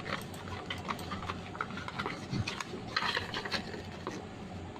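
Scattered light clicks and small taps at an irregular pace, thicker for a moment about three seconds in.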